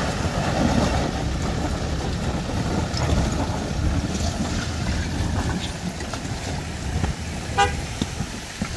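Pickup truck engines running under load as one pickup tows a Toyota Hilux up out of a river by strap, with a steady low rumble. A single short horn toot sounds near the end.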